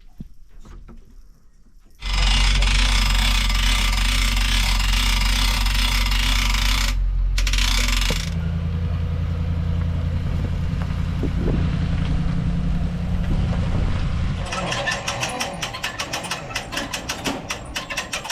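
A motor vehicle engine running, with a loud rushing noise that cuts in suddenly about two seconds in. The sound changes about eight seconds in and again near the end, where it turns into a fast, even pulsing.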